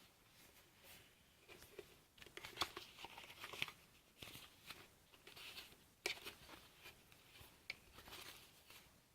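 Faint rustling and crinkling with scattered sharp clicks: packaging and drone parts being handled during unboxing.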